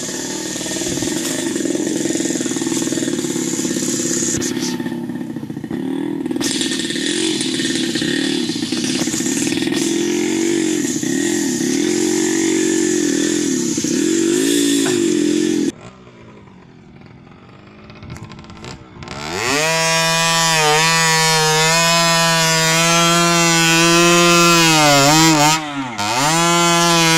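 Small motorcycle engine running under load on a rough track, its pitch rising and falling with the throttle, until it cuts off abruptly about halfway. A few seconds later a chainsaw comes up to high revs cutting through logs, its note dipping briefly near the end before picking up again.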